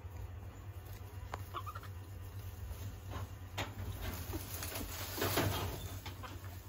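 Leaves rustling and thin branches snapping and knocking as baby macaques climb a small tree, with a few sharp clicks and a louder rustle about five seconds in, over a steady low hum.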